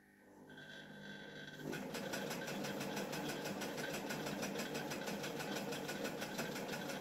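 Electric domestic sewing machine stitching through layered gauze: the motor picks up speed over the first second and a half, then runs in a fast, even stitching rhythm of about seven stitches a second before stopping suddenly at the end.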